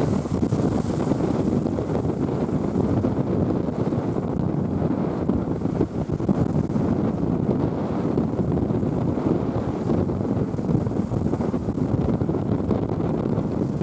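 Strong wind buffeting the microphone in a steady low rumble, with the sound of sea waves underneath.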